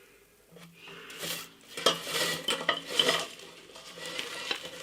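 Cooked potato wedges being handled in an air fryer basket and bowl, clattering and scraping against the metal and crockery. The handling starts about half a second in and comes in irregular clatters.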